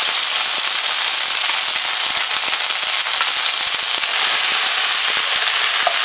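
Lemongrass paste and garlic frying in hot oil: a loud, steady sizzle thick with crackling and spitting.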